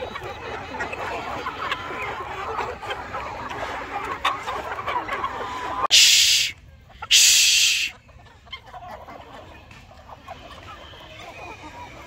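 A large flock of chickens clucking and chattering together. About halfway through, two short, loud bursts of hiss cut in, after which the clucking is quieter.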